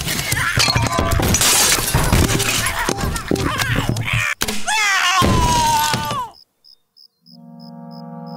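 Cartoon sound effects of crashing and breaking: a dense clatter of things knocked over and smashing, with a cat's falling meow about five seconds in. The din cuts off abruptly after about six seconds, and sustained keyboard music begins a second later.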